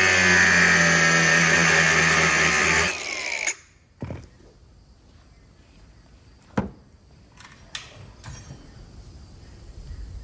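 A power tool running under steady load for about three seconds, then winding down and stopping, followed by a few sharp metallic knocks.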